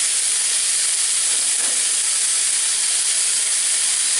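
Oil sizzling steadily in a frying pan under capsicum pieces topped with chicken mince.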